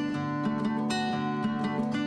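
Background music: acoustic guitar plucked and strummed in a steady rhythm, an instrumental passage of a folk song.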